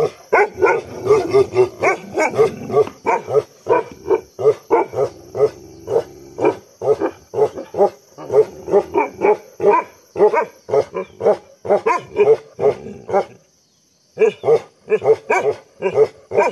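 Bhotia dog giving heavy barking: a long run of rapid barks, two or three a second. It breaks off for under a second near the end, then starts again.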